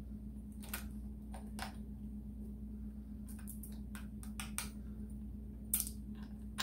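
Scattered light clicks and taps of small hardware as wire terminals are fitted onto a motorcycle's positive battery terminal, about a dozen over several seconds, over a steady low hum.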